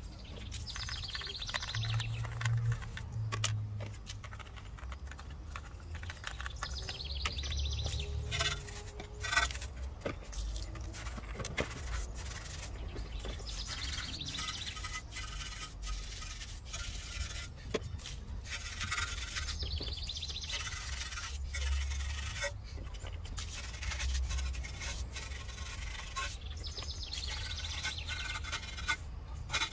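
Bristle wheel brushes scrubbing a wet, soapy alloy wheel, a scratchy swishing that comes in repeated bouts of quick back-and-forth strokes.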